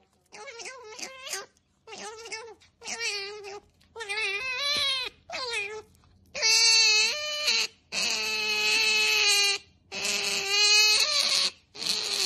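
A young animal crying in a run of high, wavering whines. The whines are short at first, then become longer and louder from about halfway through.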